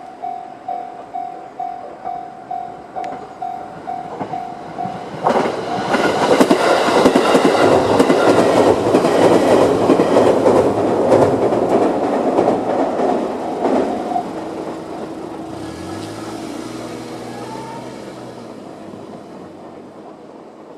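Japanese level-crossing warning bell (the JR standard electronic alarm) ringing at a steady beat, a little over two strokes a second. About five seconds in, a JR 211-series electric train passes loudly, with the clickety-clack of its wheels drowning the bell. The bell stops about fourteen seconds in as the train clears, leaving a lower hum that slowly fades.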